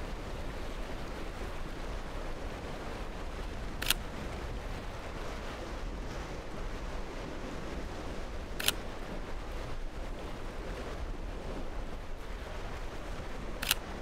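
Three camera shutter clicks, about five seconds apart, each marking a new photo, over a steady bed of surf and shore noise.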